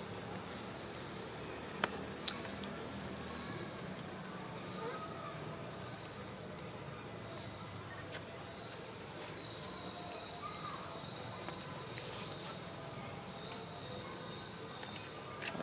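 Insects droning steadily at one high pitch, with two faint sharp clicks about two seconds in.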